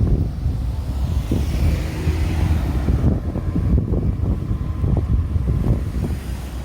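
Wind buffeting the microphone over road traffic, with a car passing about two seconds in.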